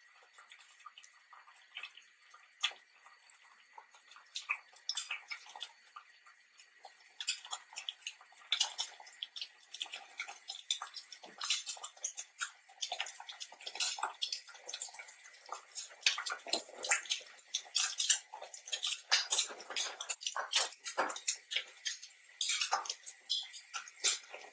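An egg frying in a small copper pan: the hot fat crackles and pops in irregular bursts. The pops are sparse at first and grow busier and louder from about seven seconds in.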